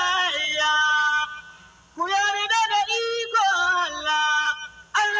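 A voice singing in held, pitched phrases, with a short break about one and a half seconds in.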